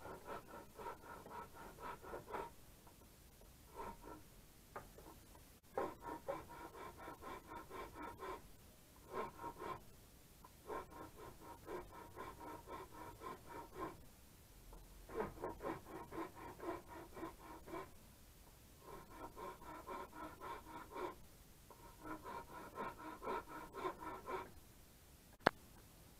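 Hanging flexible-shaft rotary tool running in repeated bursts of one to three seconds with short pauses between, as it cuts into the wooden stick. A single sharp click near the end.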